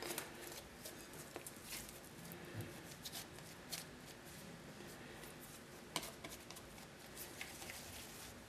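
Faint, soft handling of bread dough: hands pulling off pieces of dough and rolling them into balls, with scattered light taps and one sharper tap about six seconds in.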